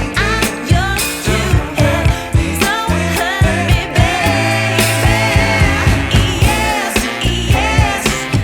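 A song playing: a singer over a steady drum beat and deep bass.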